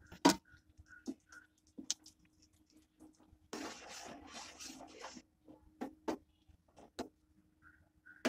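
Steel spoon stirring thick simmering milk in a metal pan: sharp clinks of the spoon against the pan, then a longer stretch of scraping and swishing about three and a half seconds in, and a few more clinks later on.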